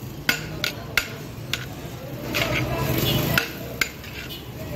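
A steel serving spoon scooping biryani from a large steel pot, clinking sharply against the metal about five times, over a low background murmur.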